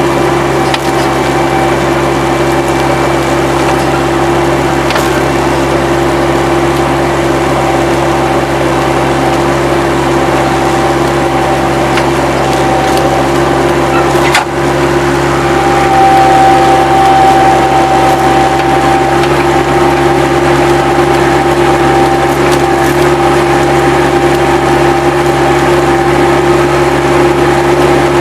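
Bobcat 763 skid-steer loader running steadily while working dirt, with a single sharp clank about halfway through. The machine gets a little louder just after that, with a higher whine on top.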